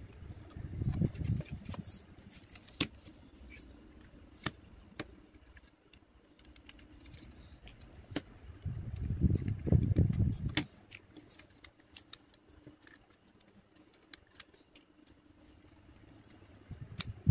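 Toy packaging handled close to the microphone: a cardboard box and plastic wrapping being worked by hands, with many scattered small clicks and crinkles. Two louder low bursts of handling noise come about a second in and again around nine to ten seconds in.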